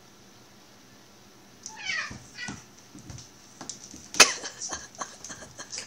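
Two cats play-fighting after catnip. About two seconds in, a short falling meow-like call, then scuffling and one sharp knock about four seconds in, the loudest sound.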